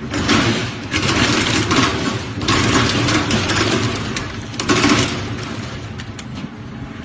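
Coconut peeling machine running: its motor hums steadily while the cutter grinds against coconut in rough bursts of a second or two, with short lulls between them.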